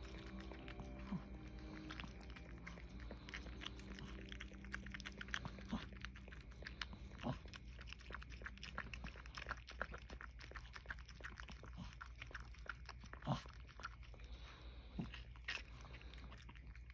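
Mother dog licking and chewing at a newborn puppy's birth sac, a run of faint wet smacking and clicking mouth sounds with a few louder smacks, as she breaks open and cleans the membrane.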